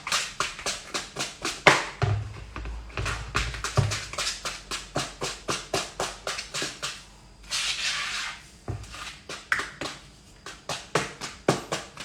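Brownie batter being stirred or beaten by hand in a bowl: the utensil knocks against the bowl about three times a second as the thickened, floury batter is worked. The strokes pause briefly about seven seconds in, then resume more sparsely.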